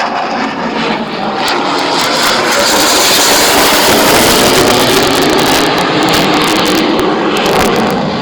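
Twin-turbofan roar of an AIDC F-CK-1 Ching-kuo fighter jet passing during a display. It builds to a peak about three to five seconds in, then eases, with some crackle in the higher part of the roar.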